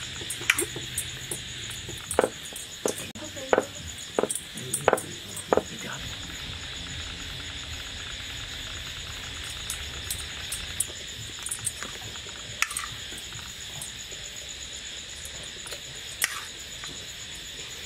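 Crickets chirring steadily, with a handful of sharp knocks in the first six seconds and two more later from food preparation on a wooden board.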